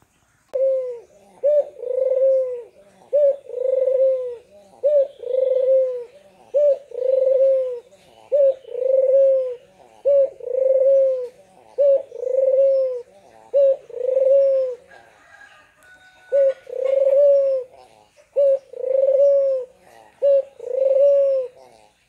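Barbary dove (puter) cooing steadily. Each coo is a short note followed by a longer one, repeated about every two seconds with a brief pause about fifteen seconds in.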